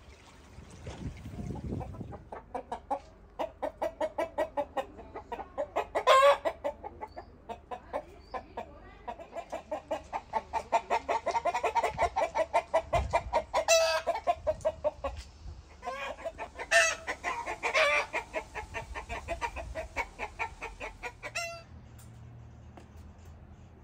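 Flock of domestic hens and roosters clucking in quick repeated runs, with a few short, louder calls standing out among them.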